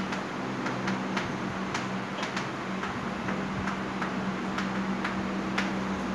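Chalk tapping and scraping on a blackboard as an equation is written, giving irregular sharp ticks a few times a second. A steady low hum runs underneath.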